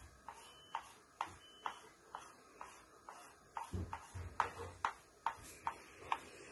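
A wax crayon drawing short, quick strokes on paper taped to a tabletop, each stroke a sharp tick. At first there are about two ticks a second, coming faster after about four seconds, with a dull knock on the table around then.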